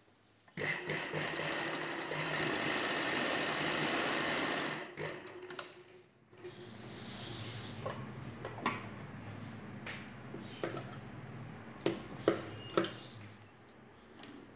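Domestic sewing machine stitching lace onto fabric, running steadily for about four seconds and then stopping. It runs again more quietly from about six seconds in, followed by a few sharp clicks near the end.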